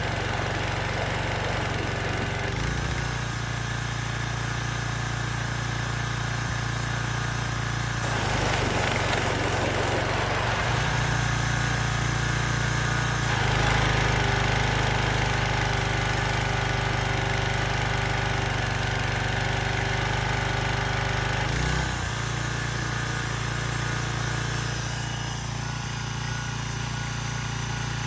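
Briggs & Stratton engine on a Craftsman pressure washer running steadily, its note shifting a few times, with a rushing hiss for several seconds in the middle. It runs smoothly now that a throttle linkage that was hanging up has been moved back.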